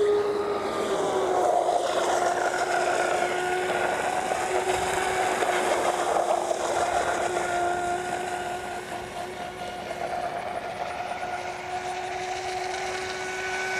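Brushless electric motor of an AquaCraft Lucas Oil RC catamaran, run on a 4S LiPo, whining at a steady high pitch as the boat runs at speed across the water. It fades a little past the middle and swells again near the end.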